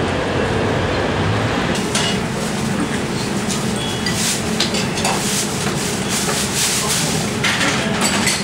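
Steady city street noise, then from about two seconds in the clatter of a ramen restaurant: bowls, spoons and chopsticks clinking and knocking over a busy din.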